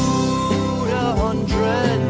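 Outro music: a song with a sung vocal melody over instruments and a steady beat.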